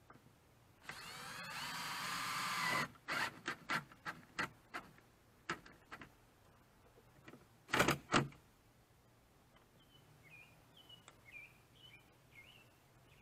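Cordless drill driving screws: one run of about two seconds with a rising whine, then a string of short trigger bursts, and two louder bursts about eight seconds in.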